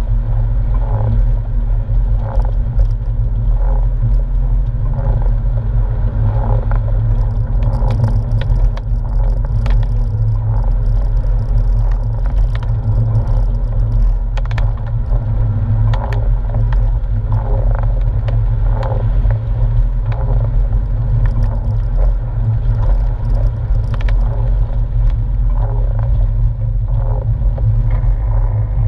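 Porsche 997's flat-six engine and tyre noise heard from inside the cabin while driving a wet road: a steady low rumble, with occasional light ticks and knocks.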